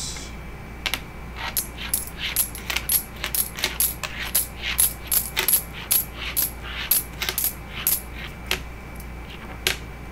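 Quarters clicking and clinking against each other as they are picked one by one off a pile on a wooden table and gathered in the hand, a run of sharp, ringing metallic clicks about two or three a second that thins out near the end.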